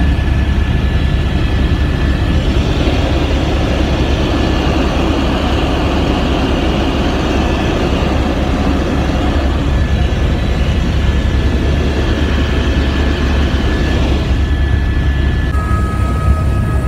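Helicopter engine and rotor noise heard from inside the cabin in flight: a loud, steady drone with a thin high whine over it. The whine drops to a lower pitch near the end.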